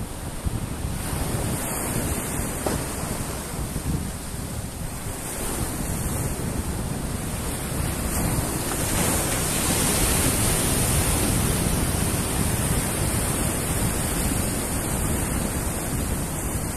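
Sea waves surging and breaking against a rock breakwater, with wind buffeting the microphone. The surf swells louder a little past the middle as a larger wave comes in and breaks.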